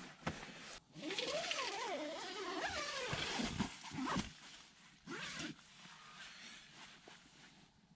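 A zipper dragged in a long uneven rasp of about three seconds, starting about a second in, with nylon tent fabric and gear rustling, and a shorter rustle about five seconds in.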